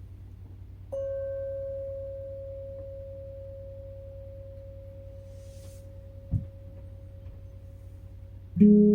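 Handpan: a single note struck about a second in rings on and slowly fades; a short low knock comes near the middle, then a louder, lower note is struck near the end. A steady low hum runs underneath.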